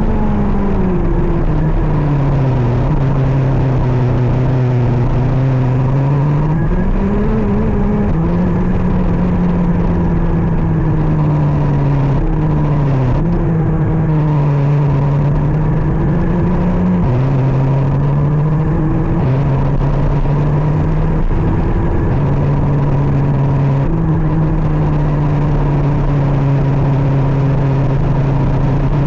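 KZ 125 shifter kart's 125 cc two-stroke engine running hard through a lap, its pitch climbing and falling with speed and stepping sharply up or down several times as it shifts gear.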